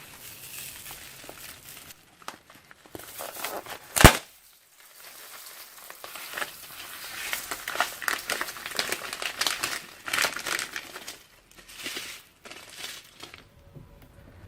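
Slime and plastic piping bags being handled and squeezed: irregular crinkling and crackling in clusters, with one sharp pop about four seconds in.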